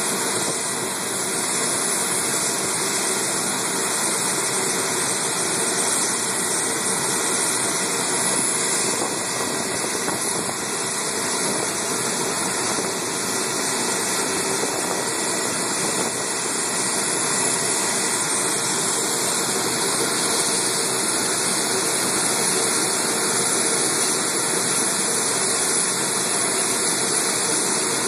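Jet engines idling, a steady whining hiss that does not rise or fall.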